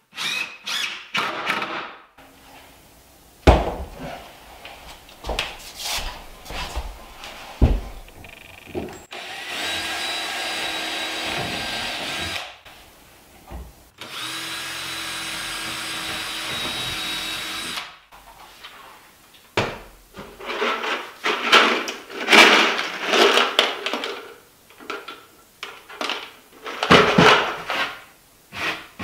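Cordless drill running in two steady runs of about three to four seconds each, working into the wooden cabinet frame. Sharp knocks and scraping handling noises come between and after the runs.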